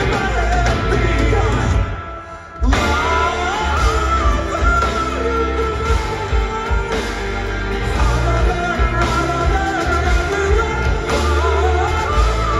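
Live progressive rock band playing with a sung vocal line. Just before two seconds in the music thins out briefly, then the full band comes back in loud.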